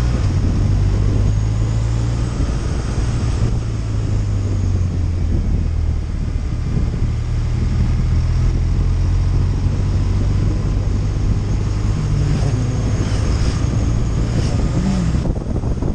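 BMW touring motorcycle's engine running steadily at cruising speed, with constant wind noise on the microphone.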